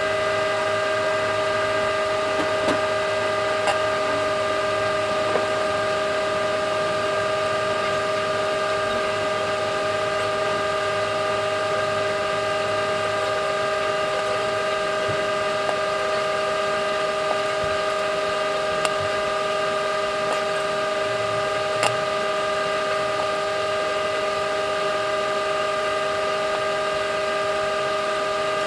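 Microwave oven running: a steady, unchanging hum of several held tones, with a few faint clicks.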